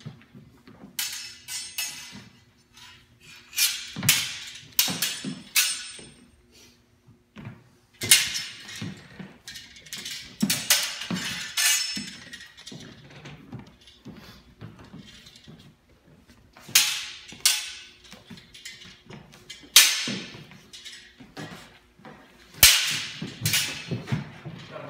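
Steel training longswords clashing and clattering blade on blade in quick bursts during sparring, several exchanges of strikes with a short metallic ring after some hits.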